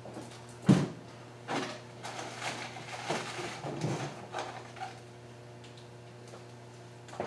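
Metal hand tools clinking and knocking as a breaker bar and sockets are handled: a sharp knock, then a looser run of clinks, over a steady low hum.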